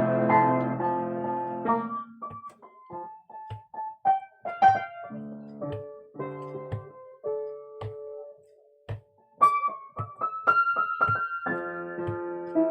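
Solo keyboard played with a piano sound. A loud held chord dies away about two seconds in, followed by slow, sparse single notes and short chords with pauses between them, then fuller chords again near the end.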